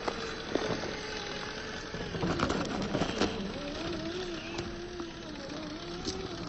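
Electric motor and gear drivetrain of an Axial SCX10 III 1/10-scale RC rock crawler whining steadily, its pitch wavering with the throttle. Sharp clicks and knocks come from the crawler's tyres and chassis on rock, clustered about two to three seconds in.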